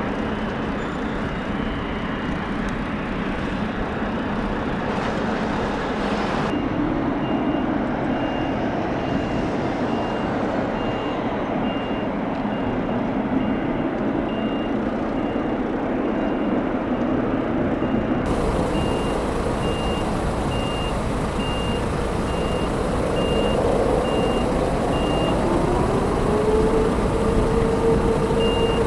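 A vehicle's reversing alarm beeping about once a second over a steady rumble of engine noise. Near the end a low hum rises in pitch and then holds steady.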